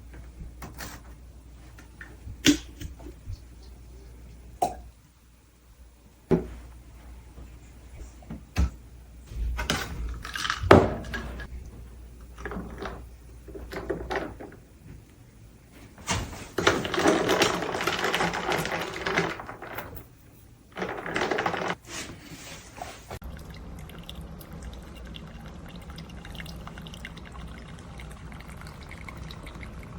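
Scattered clicks and knocks, then bursts of running and pouring water. From about 23 seconds in comes a steady low hum with a faint trickle, as the single-serve coffee maker brews.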